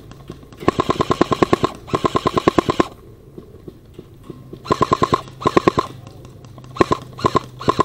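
Airsoft gun firing on full auto in rapid bursts of about ten shots a second: two long bursts of about a second each, then two shorter bursts, then three brief bursts near the end.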